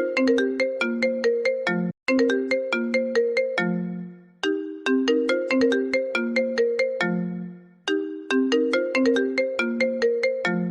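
iPhone ringtone playing: a short melody of struck, quickly fading notes, repeated about every three seconds, each time ending on a held low note that dies away.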